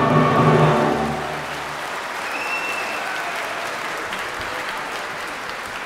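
A choir and orchestra piece ends about a second in, and an audience takes over, applauding steadily. A short high tone rises above the clapping about two and a half seconds in.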